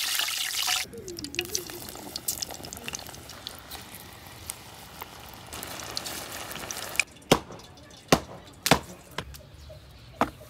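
Water running from a tap stops about a second in, followed by fainter splashing with small clinks. Four sharp knocks come near the end.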